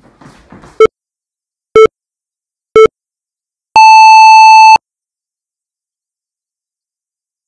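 Three short electronic beeps about a second apart, then one long, higher beep: a countdown signalling the start of a timed one-minute exercise interval. Faint footsteps on a wooden floor come before the first beep.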